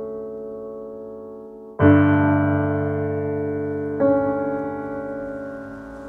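Background piano music: slow, held chords, with a new chord struck about two seconds in and another about four seconds in, each fading slowly.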